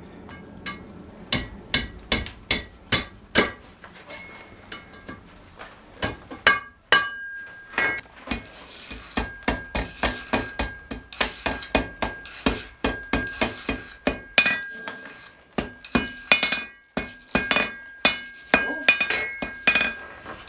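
Blacksmith's hammer striking hot iron on an anvil, bending the end of a forged hasp into a round eye; the anvil and iron ring after many of the blows. A few spaced blows come first, then after a pause quicker runs of about two to three blows a second, broken by another short pause.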